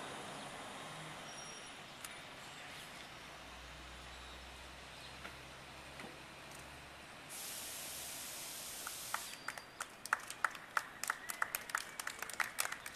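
A small group of people clapping, starting about nine seconds in and continuing, over a steady hum of street traffic. Just before the clapping a loud hiss lasts about two seconds.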